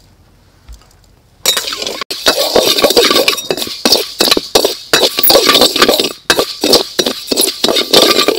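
Metal spatula scraping quickly around a dry wok, stirring and tossing raw rice grains as they are dry-roasted for roasted rice powder. The rapid scrapes and clinks start about a second and a half in and keep coming in quick strokes.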